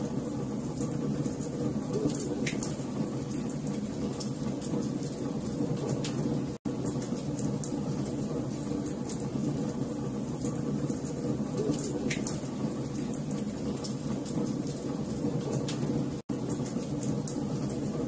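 Wood fire of burning logs crackling: a steady low rush of flames with many small sharp crackles and an occasional louder pop. The sound cuts out for an instant twice.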